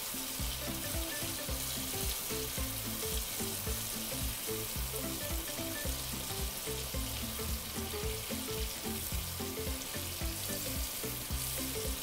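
Butter-and-orange sauce with seafood sizzling steadily in a frying pan while it is stirred with a wooden spatula, with soft background music underneath.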